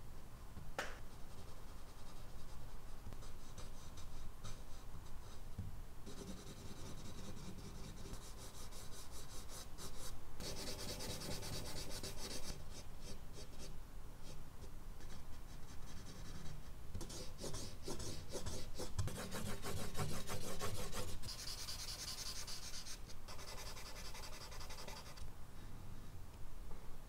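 Charcoal scratching and rubbing across medium-surface drawing paper in quick repeated strokes, coming in several louder bursts with quieter stretches between. A single sharp tick about a second in.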